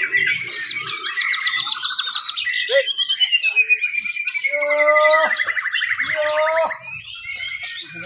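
White-rumped shamas (murai batu) singing from their contest cages, several birds at once: quick runs of trills, a long whistle sliding downward about three seconds in, then rattling phrases with lower, harsher notes. The song eases a little near the end.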